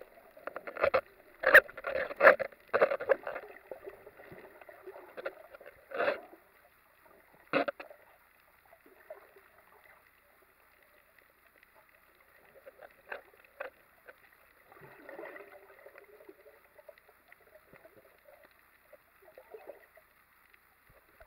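Muffled water sounds picked up by a camera held underwater while snorkeling: a run of loud short gushes in the first three seconds and two more around six and seven and a half seconds in. After that it is mostly quiet, with a faint steady high tone and scattered clicks.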